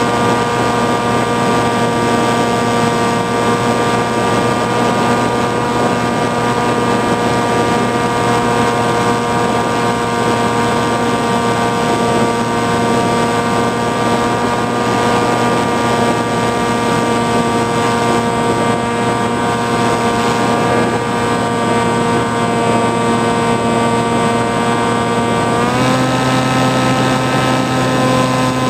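Motor and propeller of an FPV flying-wing model aircraft, heard from the camera on board: a steady whine over a rush of wind. About 26 seconds in the pitch steps up, as the throttle is opened, and holds at the higher note.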